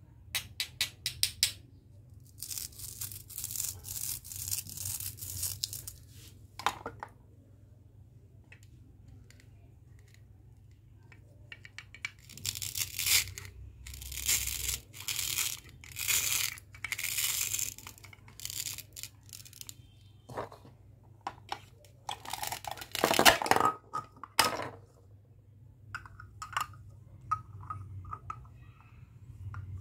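Hook-and-loop fastener pads on toy plastic fruit halves ripping apart as the pieces are pulled open, in three spells of rasping rips. A quick run of light clicks comes at the start, with scattered plastic taps between.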